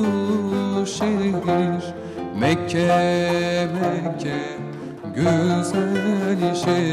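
Music: a small Turkish ensemble performing an ilahi (devotional hymn), a male voice singing with pitch swoops over plucked-string accompaniment.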